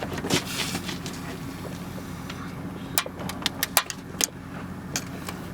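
Scattered sharp clicks and light taps of a metal car antenna and pliers working at a car door's frame, bunched between about three and five seconds in, over a steady low hum.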